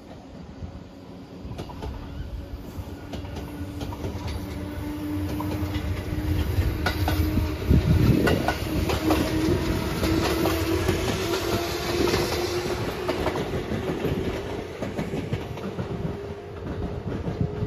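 La Malle de Bois diesel tourist railcar approaching and passing close by. Its engine note rises steadily in pitch, and its wheels clatter over the rail joints, loudest about eight seconds in, before it fades as the train pulls away.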